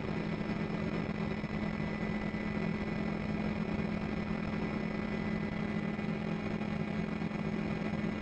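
Steady engine drone with a low hum, as heard from the helicopter the aerial shots are taken from.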